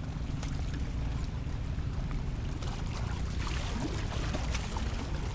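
Steady low rumble of wind buffeting the microphone on an open seashore, with sea water lapping and a scattering of small clicks.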